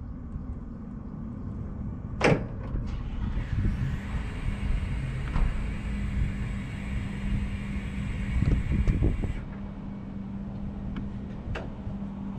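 Yale electric reach truck working: a sharp click about two seconds in, then an electric motor whir with a high hiss that cuts off suddenly after about six seconds. A steady low hum carries on under it and after it.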